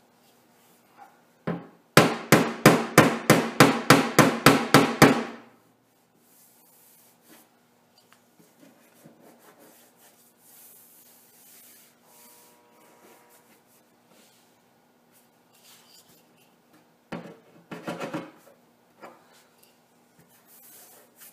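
Body hammer striking the welded rust-repair patch on a pickup's sheet-metal cab corner: a fast, even run of about a dozen blows, about four a second, then a shorter, quieter run of strikes near the end. The blows knock the weld's high spots down into slight dents so they can be filled.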